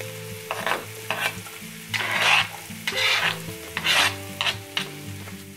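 Diced onion and green chillies sizzling in hot olive oil in a nonstick frying pan as they are scraped in from a cutting board and stirred with a spatula, with about five louder scraping strokes roughly a second apart.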